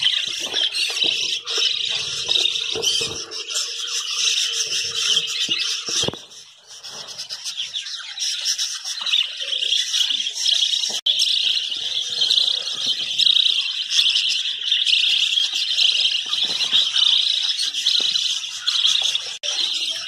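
A flock of budgerigars chattering and chirping continuously, a dense high-pitched warble of many birds at once, dipping briefly about six seconds in.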